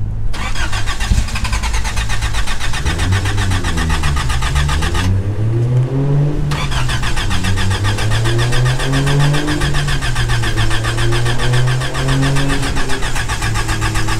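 Car engine on E85 being cold-started: it fires roughly, its revs rising and falling unevenly as it struggles to keep running. A hard cold start of the kind typical of E85.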